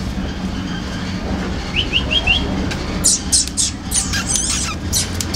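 Small birds chirping: a quick run of four short rising chirps about two seconds in, then a busier cluster of sharp high chirps a second later, over a low steady hum.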